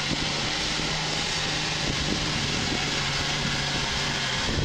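Fast river water rushing and churning against a Toyota pickup truck as it fords the current, with the truck's engine running as a steady low hum underneath.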